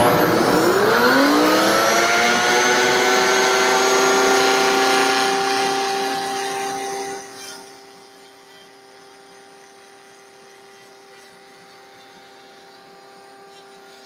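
Router in a router table starting up, its whine rising to full speed, then running steadily. About seven seconds in the overall noise drops sharply, and a quieter steady whine carries on to the end.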